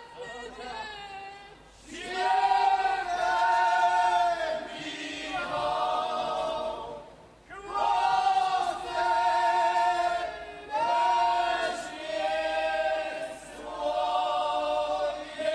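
Men's group singing a Podhale (Górale) highland folk song unaccompanied, in loud phrases with short breaks between them. A lone voice opens, and the whole group joins about two seconds in.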